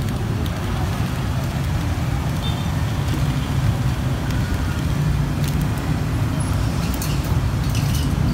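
Steady road-traffic rumble, with a few faint clicks.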